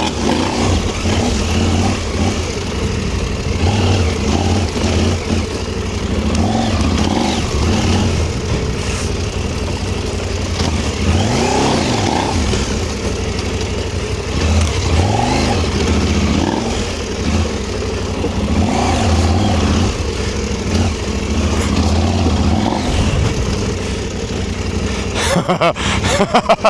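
A big adventure motorcycle's engine revving up and backing off again and again as the bike is ridden over rough off-road ground, with wind noise on the microphone. A cluster of sharp knocks comes near the end.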